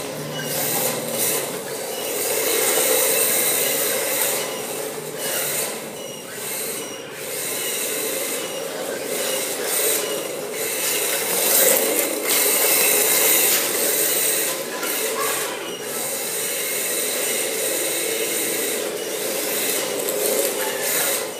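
Radio-controlled drift car sliding around the track, its hard drift tyres scrubbing across the smooth floor in a continuous noisy hiss that swells and fades as the car passes.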